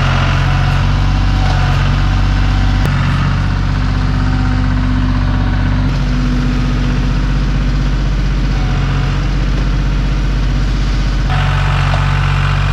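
A John Deere compact loader-backhoe tractor's diesel engine running steadily as the tractor drives with a loaded front bucket. The engine note shifts abruptly a few times.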